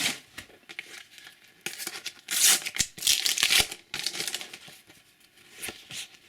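Crinkling and rustling of a paper sticker packet and its stickers being handled, with two longer rustles about two and three seconds in and scattered small clicks between.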